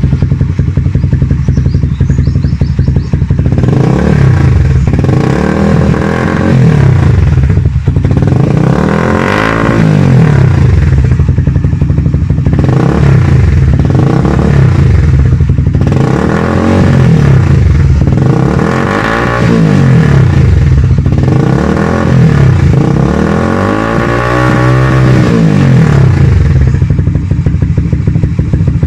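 Motorcycle fitted with an aftermarket exhaust, idling and revved in short throttle blips about every two seconds, each rise in pitch falling back to idle.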